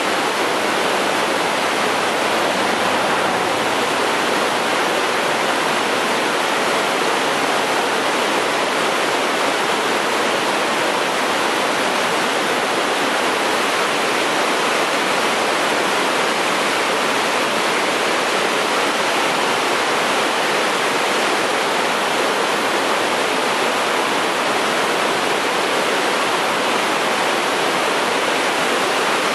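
Double-stack intermodal freight cars rolling across a steel trestle bridge: a continuous, even rush of wheel and rail noise with no horn or engine note.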